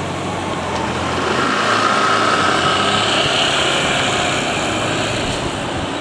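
A passing vehicle: a steady rumble with a high, steady whine that swells through the middle and eases off near the end.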